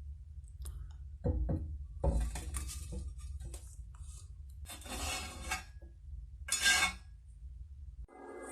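Metal pieces handled on a workbench: a few clinks and knocks, then scraping and rustling, with a low hum underneath. Music comes in near the end.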